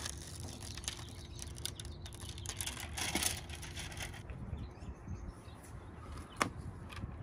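Crinkling and rustling of the thin clear plastic backing film as it is peeled off a strip of black Flex Seal tape, stopping about four seconds in. A single sharp tap follows near the end.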